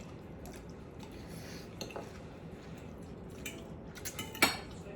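Eating at the table: soft, wet chewing of noodles and food, with a few light clicks of utensils against dishes, the sharpest clink about four and a half seconds in.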